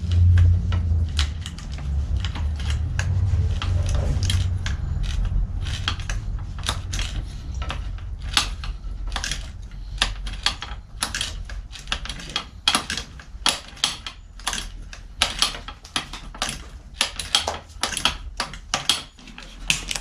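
Irregular sharp metallic clicks and taps of hand tools working on a bicycle's rear frame and drivetrain, getting denser, at two to three a second, later on. A low rumble sits under the first few seconds.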